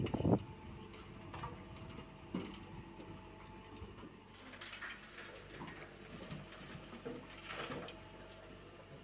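Komatsu PC75US mini excavator's diesel engine running steadily as it loads dirt into a dump truck, with loud knocks right at the start and scattered clunks and short rattling bursts later on.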